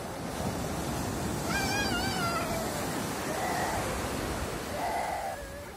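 Small waves washing on a sandy beach, with a toddler's short high-pitched squeal about two seconds in.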